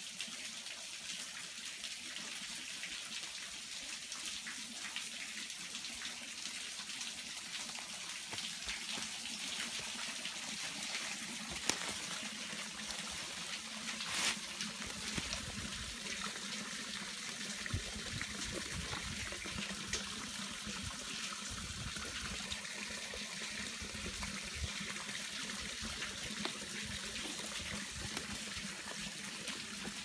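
Water trickling and running in a small creek beneath an ice-covered waterfall, a steady hiss. From about halfway, irregular low rumbling comes in underneath.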